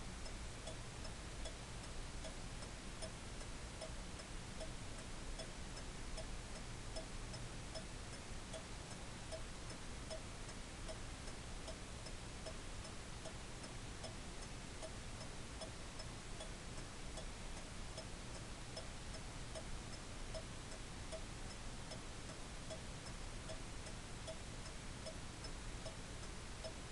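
Antique skeleton clock's escapement ticking at a steady, even beat, over a faint steady hiss and low hum.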